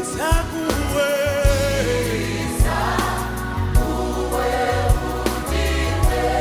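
Gospel music: a choir singing over a steady bass and beat.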